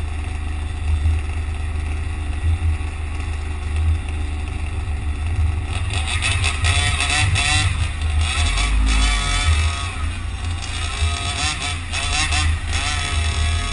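Road vehicle noise in traffic: a steady low rumble, joined about six seconds in by a busier, higher rasping sound.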